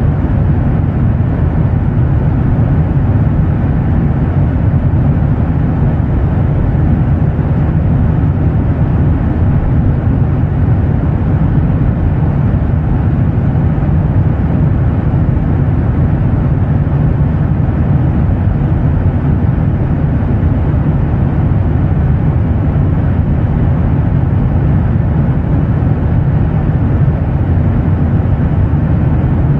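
Jet airliner engine noise: a deep, steady rumble with a softer hiss above it, unchanging throughout.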